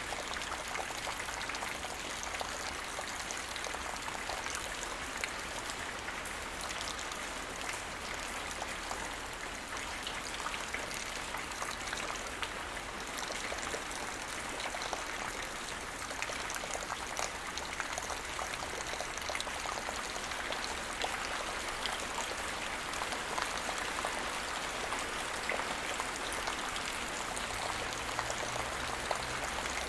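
Steady rain falling, a dense even patter of many small drop ticks. It neither builds nor eases.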